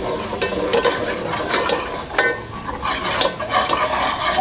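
A metal ladle scrapes and clinks irregularly against a metal pot while stirring garlic, ginger and chilli paste frying in oil, with the oil sizzling underneath. The paste is being roasted to cook off the raw taste of the garlic.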